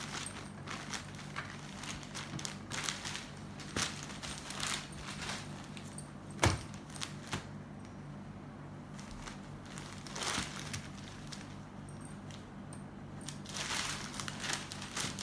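Printed Kalamkari sarees being unfolded, flapped and laid down on a table: cloth rustling in short bursts with scattered soft knocks, and one sharper knock about six and a half seconds in. A low steady hum runs underneath.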